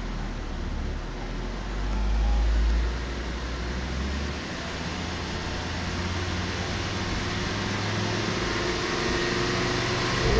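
Ford Focus ST's 2.5-litre turbocharged five-cylinder engine idling in neutral at a standstill, making the strange noise the owner noticed there, echoing in a garage. The sound swells briefly about two seconds in, then runs steadily.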